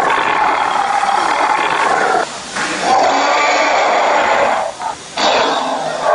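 Recorded T-rex roar sound effect, three long roars in a row with short breaks between them.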